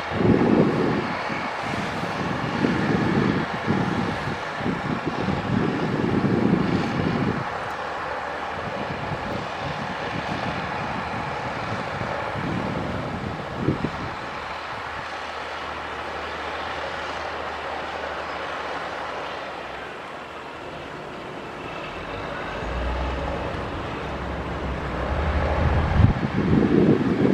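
Diesel engine of heavy earthmoving machinery running steadily, with louder low rumbling surges in the first seven seconds and again near the end.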